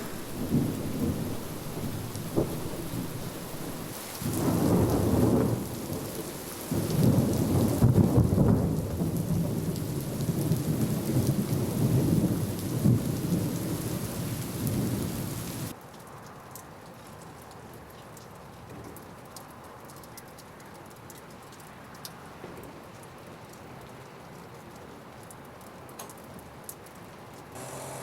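Thunder rumbling long and loud over steady rain, with the heaviest rolls starting about 4 s and 7 s in. About halfway through the sound cuts abruptly to quieter rain alone, with individual drops ticking close by.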